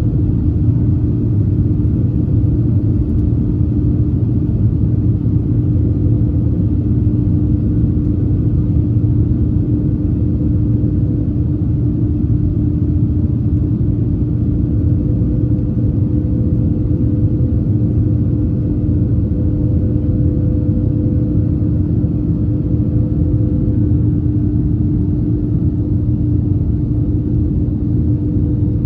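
Steady cabin noise of an Airbus A321 in flight: engine and airflow rumble with a steady hum running through it.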